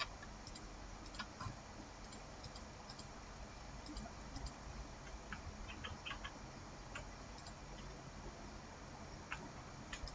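Faint, scattered clicks of a computer keyboard and mouse at irregular spacing, a few coming close together about halfway through, over low steady room hiss.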